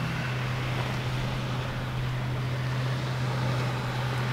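A steady low drone, constant in pitch and level, over a faint even hiss.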